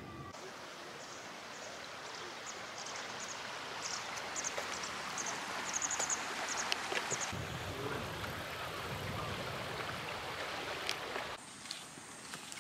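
Shallow stream running, a steady rush of water with short high chirps over it. About a second before the end the water cuts off, leaving footsteps on asphalt and a steady high tone.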